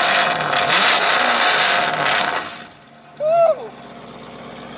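Performance car engine revving loudly, then dropping away about two and a half seconds in. A moment later comes a short, loud whoop from a person, rising and falling in pitch, with a voice crack.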